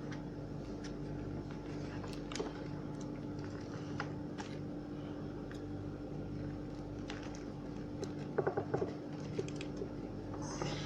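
Small clicks and scratches of hands working a wire terminal out of an impact drill's plastic housing, with a short run of quick taps about eight and a half seconds in. A steady low hum runs underneath.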